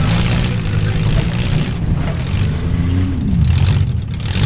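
Demolition derby car engines revving hard together, one engine's pitch rising and then dropping a little after three seconds in.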